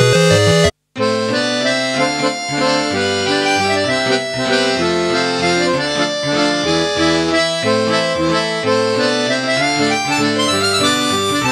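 Nord Wave synthesizer playing held notes and chords over moving bass notes. The music cuts out abruptly for a moment just under a second in, then resumes.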